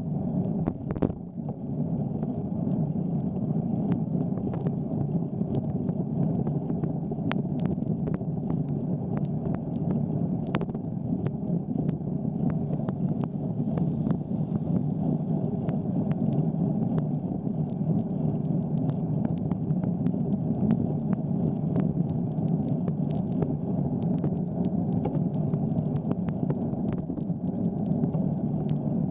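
Steady rumble of a bicycle rolling on wet pavement, tyre and road noise carried through the camera mount, with scattered sharp ticks.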